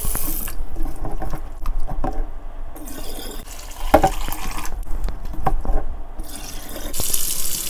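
Tap water running and splashing into a stainless steel bowl as raw chicken feet are rinsed by hand, then water pouring off as the bowl is tipped to drain near the end.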